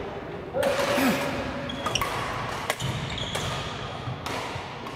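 Shuttlecocks hit by badminton rackets in play: several sharp hits about a second apart, echoing in a large hall.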